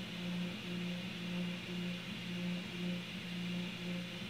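3D printer running mid-print: its stepper motors hum in a steady low tone that breaks off and resumes a few times a second as the print head moves, over the constant hiss of cooling fans.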